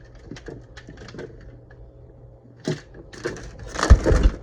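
Irregular light clicks and rattles of something being handled, building into a louder clatter with a heavy thump near the end.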